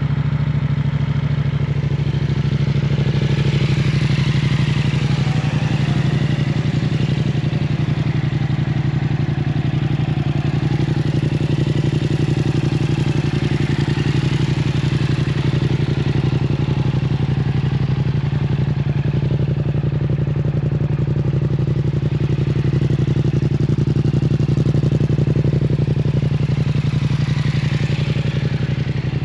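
2021 Yamaha XSR700's 689 cc parallel-twin engine idling steadily through a Yoshimura full-system exhaust.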